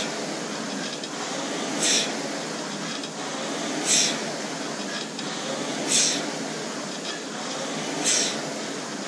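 Concept2 indoor rower's air-resistance flywheel whirring steadily under hard rowing, with a sharp whoosh about every two seconds, once per stroke.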